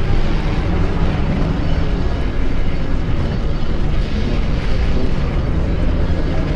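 Experimental noise-ambient music built from heavily processed music samples: a loud, steady wall of distorted noise, heaviest in the bass, with no clear melody or beat.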